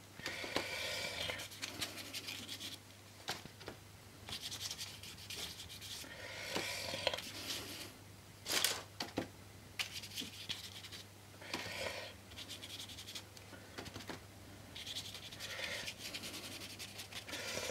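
Paintbrush scrubbing paint onto a paper print in short bouts of scratchy strokes, with a sharp knock about halfway through. A faint low hum runs underneath.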